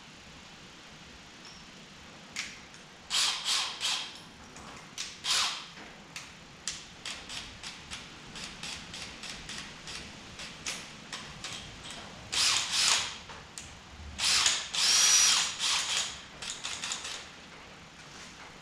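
Bits being changed in a cordless drill: runs of ratcheting clicks from the keyless chuck being opened and tightened, with several short bursts of the drill running.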